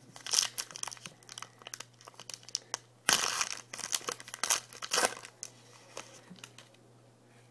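A trading-card pack wrapper being torn open and crinkled, in loud crackling bursts about half a second, three seconds and five seconds in, then dying down to light rustles.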